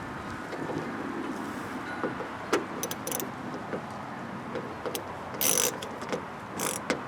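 Car door handle and linkage parts being handled and fitted inside the door: scattered clicks and light rattles, one sharp click about two and a half seconds in, and two short scrapes, the first about five and a half seconds in and the second near the end.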